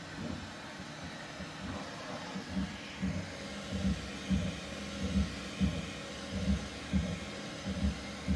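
Bambu Lab X1 Carbon 3D printer running through its final layers: a steady fan hum, and from about two and a half seconds in a regular low thump about twice a second as the toolhead runs back and forth over the parts.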